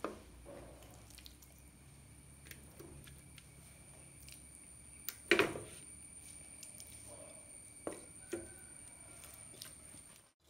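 Pieces of marinated chicken set down by hand into a clay pot: a few soft, wet squishes and thuds, the loudest about halfway through.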